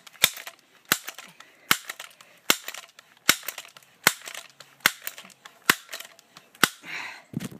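A pellet gun's action clicking sharply as it is worked: about nine clicks, evenly spaced a little under a second apart.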